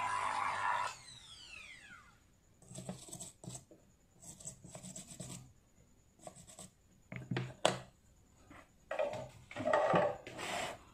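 Small electric drill used to bore out an eMMC chip: it runs steadily for about a second, then is switched off and its whine falls in pitch as it spins down. A series of short, irregular rubbing and scraping strokes follows.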